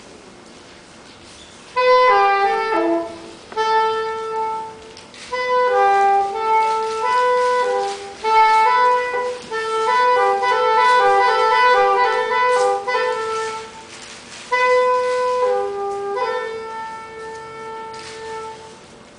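Solo woodwind melody: slow phrases of held notes that begin about two seconds in, with short breaks between phrases.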